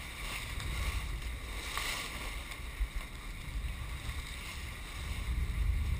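Sportfishing boat under way on the open ocean: water rushing along the hull and wind buffeting the microphone over a low rumble, which swells about five seconds in.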